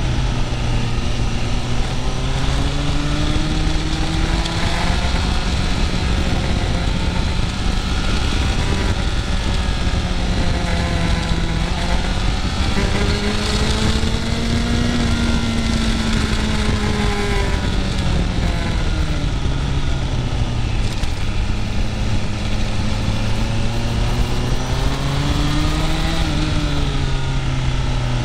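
Motorcycle engine running while riding, its pitch rising and falling slowly several times as the throttle opens and closes. A steady rush of wind noise runs underneath.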